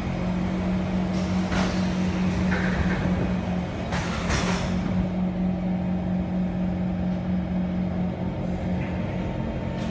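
Interior of a Kawasaki C151 MRT train pulling out after the doors close: a steady low hum over a rumble. Two short bursts of hiss come about one and a half seconds and four seconds in.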